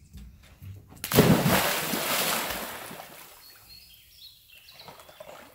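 A dog plunges into the water about a second in with a loud splash, followed by churning water that fades as it swims off.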